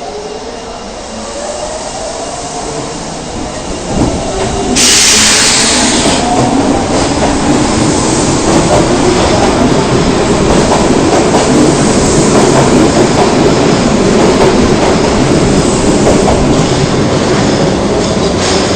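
Osaka subway 22 series train pulling out, its motors whining up in pitch as it gathers speed. A sharp hiss comes in about five seconds in, and after that the loud, steady running noise of the cars and wheels on the rails carries on.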